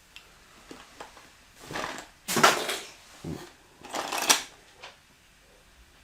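Loose plastic building bricks rattling and clattering as they are pushed around and sorted by hand, in four short bursts, the loudest about two and a half seconds in and again just after four seconds.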